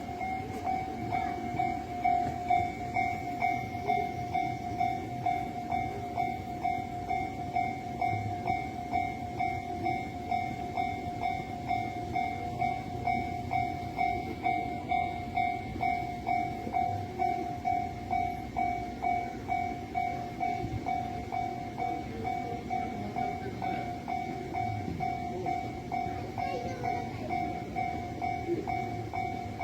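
Japanese level-crossing warning bell ringing without a break, an even electronic ding repeating about one and a half times a second, with a low rumble underneath. The crossing is closed and signalling that a train is coming.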